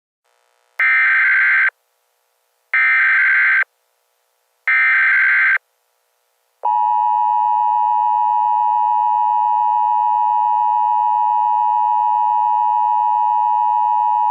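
Emergency Alert System tones: three short, harsh screeching data bursts (the SAME header), about two seconds apart, then the steady two-tone EAS attention signal held for about eight seconds before cutting off.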